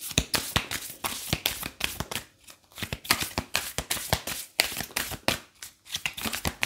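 A deck of oracle cards shuffled by hand: a rapid run of card clicks, with a few brief pauses.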